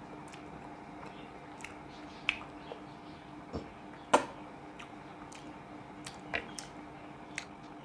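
Close-miked mouth sounds of a man chewing a handful of rice and katla fish curry: scattered short wet clicks and smacks, the loudest about four seconds in, over a faint steady hum.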